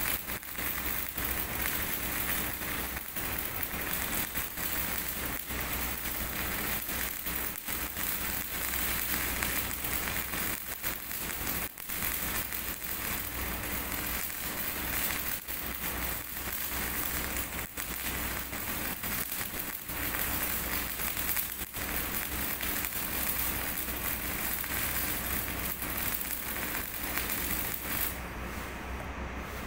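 MIG welding arc crackling steadily as a bead is laid on thick steel plate, with a few brief dips, cutting off near the end.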